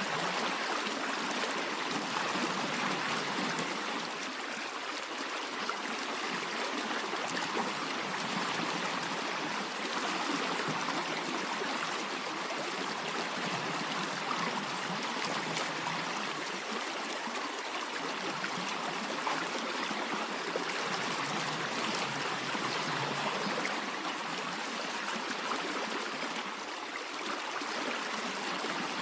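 A stream of water flowing steadily, an even rushing and trickling with no breaks.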